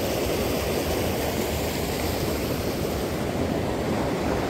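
Steady rushing of river water pouring over a low concrete weir, with a low rumble under it.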